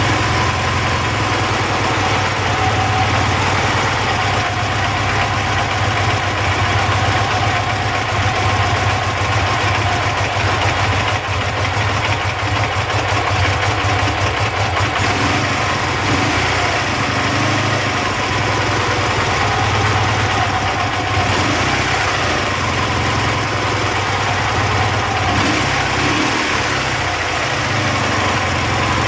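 Dnepr MT-10-36 motorcycle's 650 cc flat-twin engine idling steadily, with the knock the owner is hunting; he means to check the ignition and adjust the valves next.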